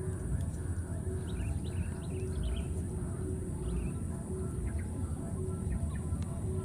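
Outdoor field ambience: a steady low rumble and a steady high hiss, with a few short high-pitched chirps in the first half and again about five seconds in.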